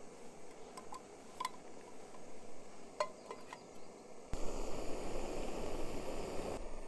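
Primus gas canister stove burning steadily under a pot with a hiss, while a metal lid is set on the cookpot with several light clinks. About four seconds in, the burner hiss is suddenly much louder and closer, with a low rumble under it.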